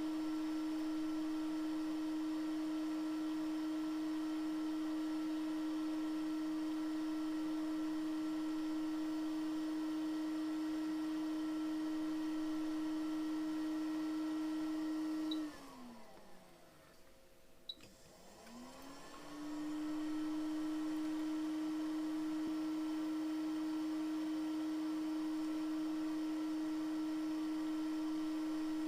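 A small electric motor, a fan, humming steadily. About halfway through it switches off and winds down in falling pitch. There is a brief quiet with a single click, then it spins back up in rising pitch and resumes the same hum.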